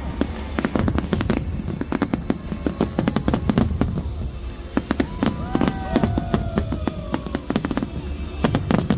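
Fireworks going off in rapid, dense bangs and crackles. About five seconds in, several whistles glide slowly down in pitch over the bursts.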